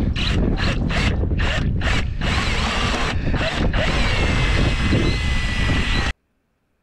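Ratcheting screwdriver clicking in quick back-and-forth strokes, about two a second, as it drives the screw of a steel gutter hanger, then in longer unbroken runs. Heavy wind rumble sits on the microphone throughout. Everything cuts off abruptly about six seconds in.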